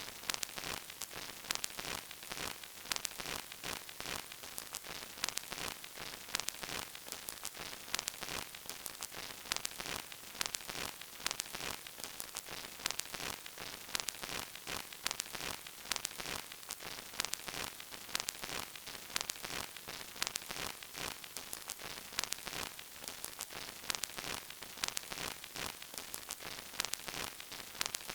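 Surface noise of an old vinyl record: a steady hiss dotted with frequent small crackles and pops.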